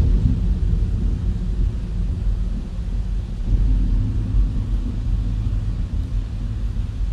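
Deep, steady machine rumble with a faint hum over it, part of an ambient sound piece built from field recordings of machinery.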